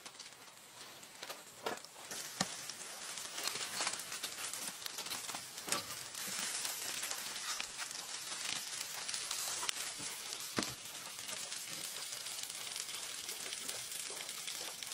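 Food sizzling in oil inside an opened aluminium foil packet, a steady hiss with scattered sharp pops and crackles, and the foil crinkling now and then as it is stirred.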